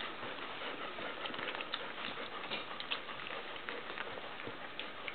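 A litter of young puppies nursing from their mother dog: many small, irregular suckling clicks and smacks mixed with the scuffle of puppies jostling for the teats.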